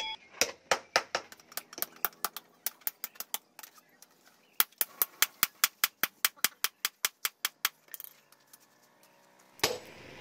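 Hand hammer beating a red-hot bearing-steel knife blank on a steel anvil block in quick, even blows, about five a second. There are two runs of blows with a short break between them, and the hammering stops shortly before the end.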